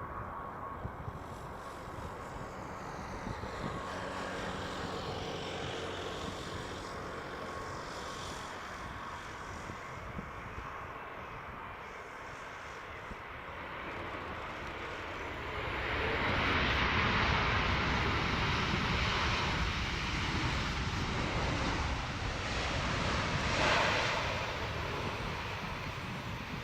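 Jet engines of a Boeing 787-10 airliner passing close: a whine that slides down in pitch, then the engine noise swells to its loudest about two-thirds of the way through.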